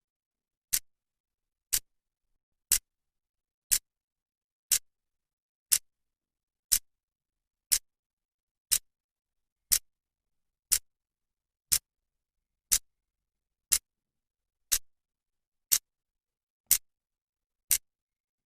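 Clock second hand ticking, one sharp click each second.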